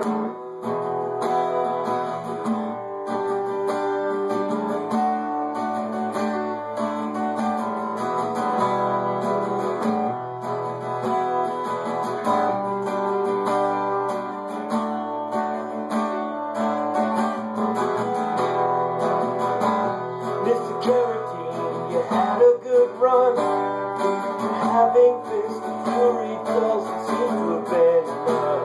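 Acoustic guitar strumming chords as a song's instrumental intro, starting suddenly. About twenty-two seconds in, louder picked notes come in over the strumming.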